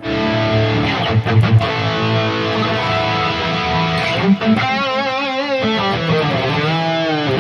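Electric guitar played through the Harley Benton DNAfx Git Pro modeler's chorus effect: strummed chords and single notes, with held notes bent in a wide wobbling vibrato about two-thirds of the way through.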